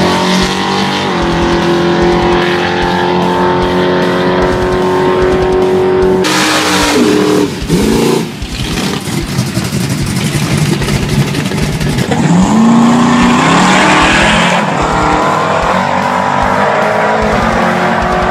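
Carbureted, nitrous-fed V8 drag cars running at full throttle on the strip, with tyre noise from a burnout launch. The engine note falls away several times about seven seconds in, then rises sharply about twelve seconds in.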